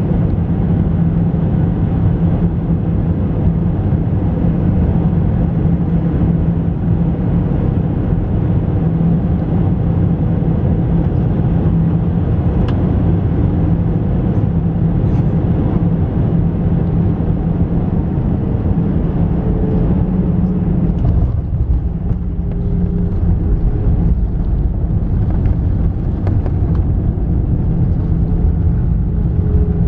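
Cabin noise aboard an Airbus A320-214 with CFM56 engines during final approach and landing: a steady rumble of engine and airflow with a low hum. About two-thirds of the way through, with the jet on the runway, the sound changes, the hiss thinning and the engine tones shifting lower.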